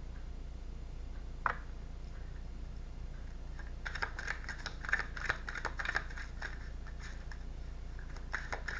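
Tarot cards being handled and shuffled: one sharp click about a second and a half in, then flurries of quick, light, irregular clicks from about four seconds in and again near the end.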